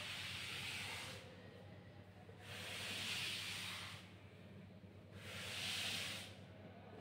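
Board eraser wiping chalk off a blackboard in long hissing strokes. The wipes come in separate passes about every two and a half seconds: one ends about a second in, one starts near the end, and two full strokes fall in between.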